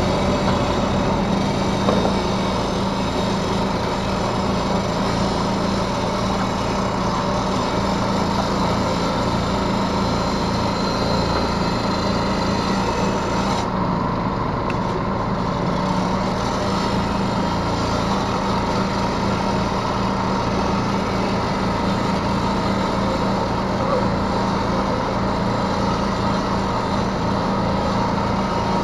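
Yanmar B3Σ 3-ton mini excavator's diesel engine running steadily under work, heard from the operator's seat. A high hiss over the engine drops away about halfway through.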